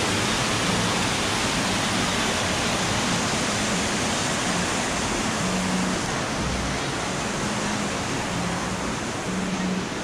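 Creek water rushing steadily over rock ledges and into a pool, a continuous even roar of small waterfalls that grows a little fainter in the second half.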